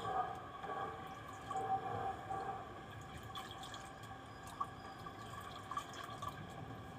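Liquid being scooped with a plastic cup from a plastic bowl and poured back in, with small splashes and drips, as a buttermilk and asafoetida solution is mixed.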